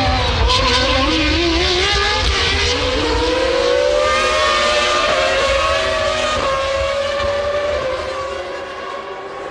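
Formula One car engines running at high revs, their pitch rising and falling as the cars race, growing quieter near the end.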